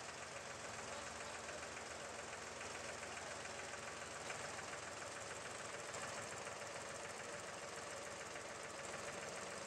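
Tractor diesel engine running steadily with a fast, even clatter, powering the hydraulic loader arm as it lifts a concrete mixer.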